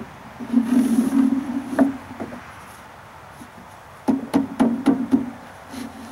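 Mailbox post's base sleeve rubbing as it is pushed down over a wooden 4x4 post, giving a low, steady groan in two pushes; the second push is broken by a run of sharp clicks.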